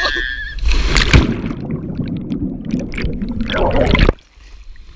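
A person jumping into water: a loud splash about a second in, followed by churning and sloshing water that stops abruptly about four seconds in.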